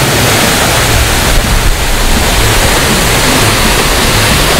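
Loud, steady rush of falling water.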